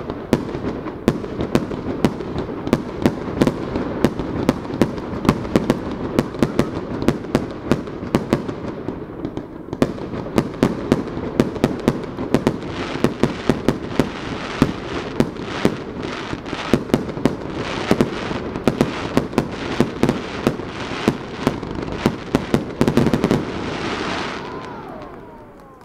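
Aerial fireworks shells being fired and bursting in a rapid barrage: several sharp bangs a second over a continuous rumble of reports. The barrage grows denser in the second half, peaks in a louder cluster of bursts near the end, then dies away.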